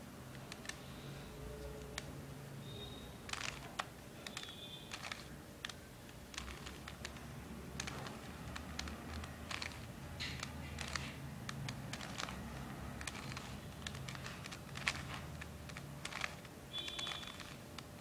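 A stickerless 3x3 plastic puzzle cube being turned by hand: sharp plastic clicks and clacks as its layers are twisted and snap into line, coming in irregular runs of several a second.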